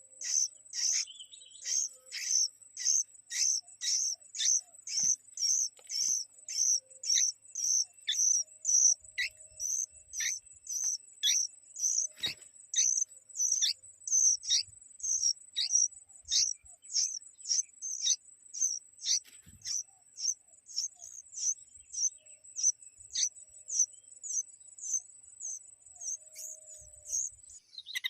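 A bird gives a long series of short downward-sweeping chirps, about two a second. Under it runs a steady high-pitched insect trill that stops near the end.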